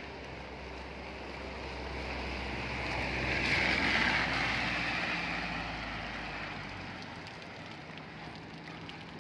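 A car passing on a rain-soaked road: the hiss of its tyres on the wet asphalt swells to a peak about four seconds in, then fades as it drives away.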